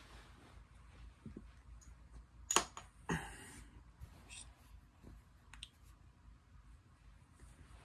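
Handling noise from a hand moving plush toys close to the microphone: a few soft clicks and rustles, the loudest two about two and a half and three seconds in, over quiet room tone.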